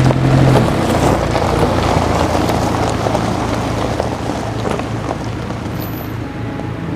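Car on the move: steady road and wind noise. A low hum drops out under a second in, and the noise slowly fades.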